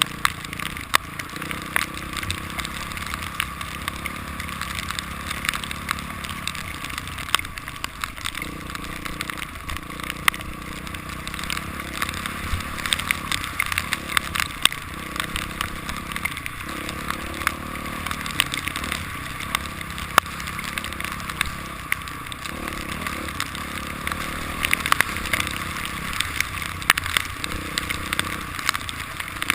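Dirt bike engine running on a trail ride, its pitch rising and falling with the throttle every few seconds, under a constant crackle of sharp ticks and knocks.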